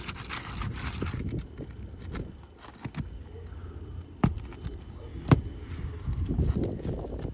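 Flat roofing bar working under asphalt shingles to break their sealant strips: scraping and crackling, with two sharp knocks about four and five seconds in.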